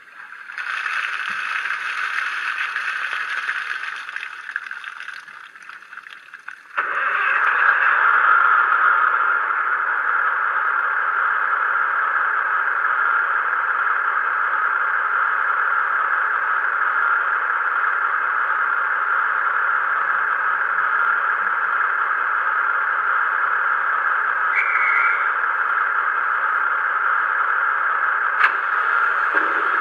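Sound decoder in a Hornby Class 153 Sprinter model playing a recorded diesel railcar engine through its small, thin-sounding speaker. The engine runs steadily, then about seven seconds in it steps up suddenly to a louder, steady drone. A brief high beep comes near the end, followed by a single click.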